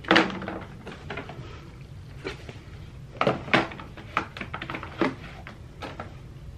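Plastic spray bottles and a plastic container being picked up and set down on a chrome wire shelf: a string of light knocks and clatters, the loudest right at the start and a quick pair a little past three seconds in.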